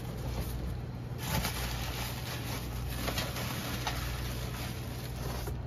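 Plastic air-cushion packaging and cardboard rustling and crinkling as hands dig through a shipping box, with a few light knocks, over a steady low hum.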